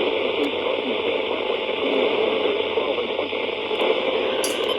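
Steady, loud static hiss on a NOAA Weather Radio broadcast, with the automated voice reading the severe thunderstorm warning buried and unintelligible beneath it.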